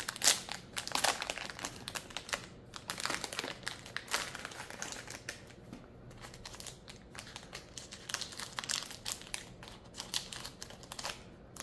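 Clear plastic packaging crinkling and rustling in the hands as a small plastic bag is pulled off a camera accessory: an uneven stream of sharp crackles that stops shortly before the end.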